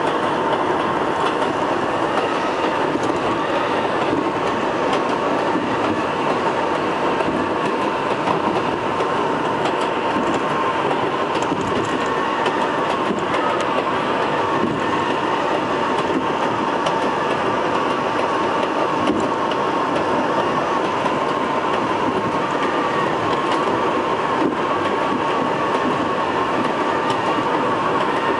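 R62A subway train running steadily at speed on elevated track, heard from inside the car: wheels on rail and running gear with a constant high tone over the rumble.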